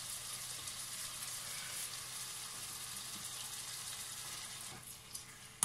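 Artichoke pieces and onion sizzling steadily in oil in a frying pan. Near the end the sizzle dies down as fried tomato sauce is poured in from a glass jar.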